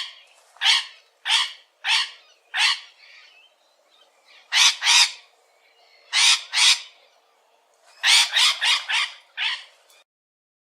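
A bird giving harsh, raspy calls, each short, about a dozen in all: evenly spaced at first, then in pairs, then a quick cluster of four or five near the end.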